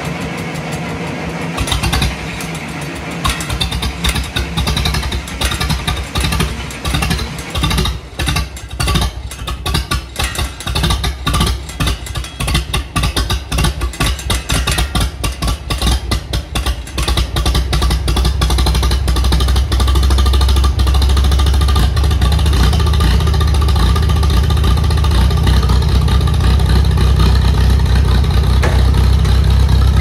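Tractor engine running, heard at its vertical exhaust stack with a hinged rain cap. For the first half it runs unevenly with clattering. From about eighteen seconds in it settles into a steady, louder run.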